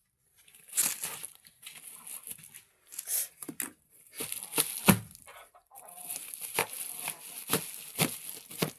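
Chickens clucking, among a run of short, sharp knocks and rustles.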